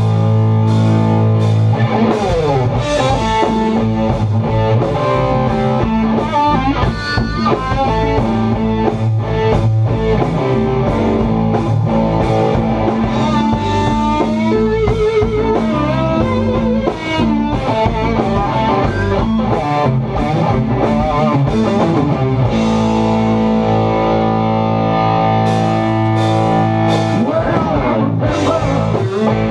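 Live blues-rock band playing: a distorted electric guitar plays a lead line full of string bends and vibrato over bass guitar and drum kit. It opens on held chords and settles back into sustained chords near the end.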